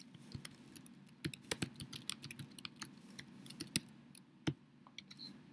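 Typing on a computer keyboard: a quick, irregular run of key clicks as a short phrase is typed.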